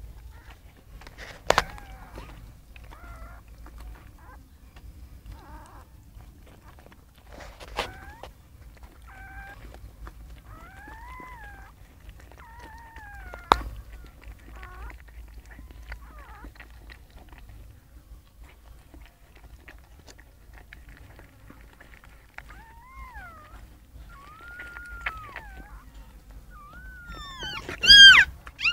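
Newborn puppies squealing: short, high-pitched cries that rise and fall, scattered through, with the loudest cry near the end. A few sharp knocks in between.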